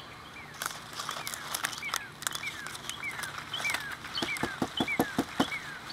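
A radish pulled by hand from loose garden soil: leaves rustling and roots tearing, with a quick run of sharp crackles about four to five seconds in. A bird calls behind it with a short falling chirp, repeated about twice a second.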